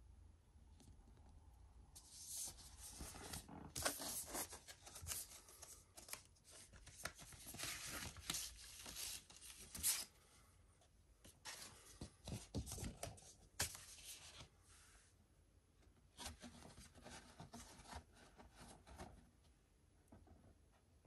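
Rustling and scraping of vinyl record packaging being handled, in uneven bursts from about two seconds in, with a short pause before a last stretch.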